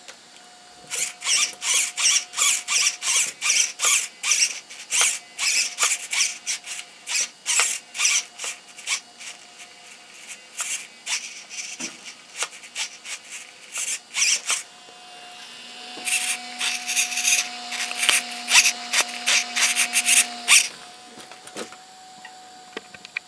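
RC truck steering servo whirring in quick short bursts, about two a second, as the wheels are swung back and forth. The bursts pause briefly midway, and a faint steady whine runs underneath.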